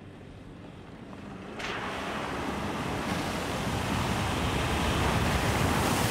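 Land Rover Defender driving into a water crossing: about a second and a half in, a sudden rush of splashing water starts and swells steadily louder as the vehicle ploughs through, throwing up spray.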